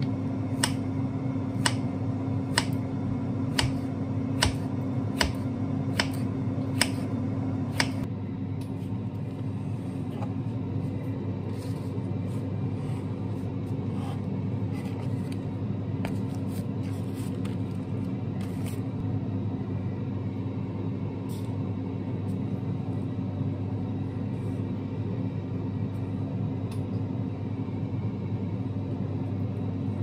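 Knife chopping on a wooden cutting board, regular chops about one and a half a second for the first eight seconds, then only occasional light taps. All of it sits over a steady low mechanical hum.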